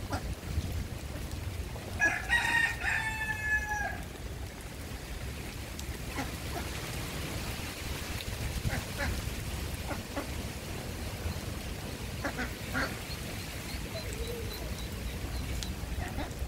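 A rooster crowing once, about two seconds in: a single crow of nearly two seconds that falls in pitch at the end, over steady background noise.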